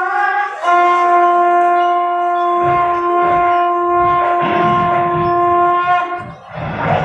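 A long blown horn note from the show's soundtrack: a brief opening note, then one long held note for about five seconds, with low drum beats coming in under it about halfway. It cuts off about six seconds in and music starts just before the end.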